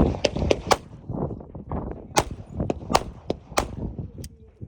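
Gunfire at a shooting range: about eight sharp shots at uneven intervals, a few close together in the first second, then more spread over the following seconds.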